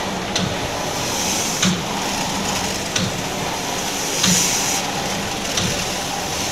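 Steam beam engine turning over slowly while steam hisses steadily. A knock comes about every second and a quarter, and a louder puff of hiss follows a little past halfway, as the engine is run up with its steam valve barely cracked open and a drain venting.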